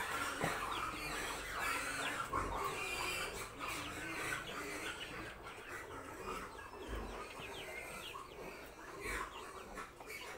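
Chickens clucking, with many short chirping calls overlapping throughout.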